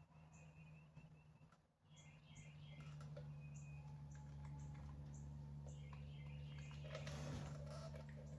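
Faint background sound: small birds chirping now and then over a steady low hum, with a brief dip in level a little under two seconds in.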